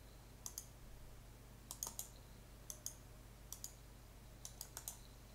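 Computer mouse buttons clicking faintly, about seven short clicks spread unevenly, most heard as a quick press-and-release pair, as points of a wall path are placed in a drawing program.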